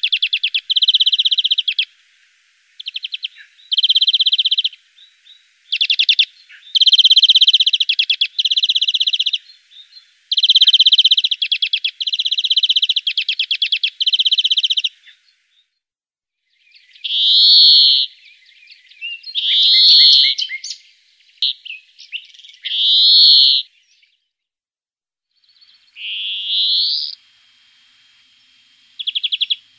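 European greenfinch singing: rapid twittering trills through the first half, then three longer drawn-out notes about three seconds apart, and two rising notes near the end.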